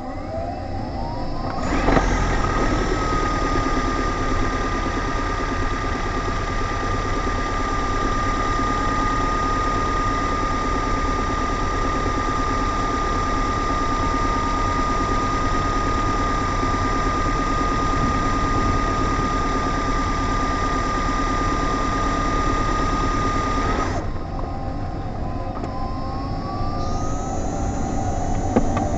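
Honda Fit GR3 driving, heard on the passenger side. A high whine rises over about two seconds, holds steady over road and drivetrain noise, and cuts off sharply; near the end another rising whine begins.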